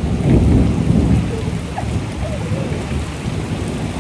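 Heavy rain pouring down steadily. A loud low rumble swells about half a second in and eases off over the next second.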